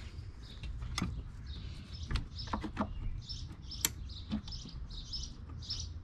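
A few sharp metal clicks from small channel-lock pliers being adjusted and handled. From about halfway through, a bird chirps over and over in short high notes, about two a second.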